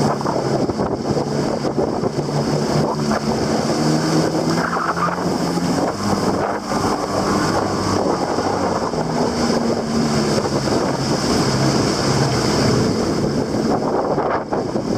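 Jet ski engine running under way, its pitch wavering as the throttle changes, with wind buffeting the microphone and water rushing past.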